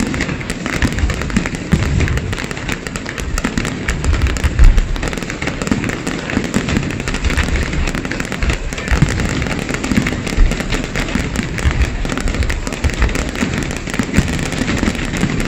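Aerial fireworks display: a dense, continuous crackling and popping over repeated deep shell bursts, with the loudest bangs about four and a half seconds and ten seconds in.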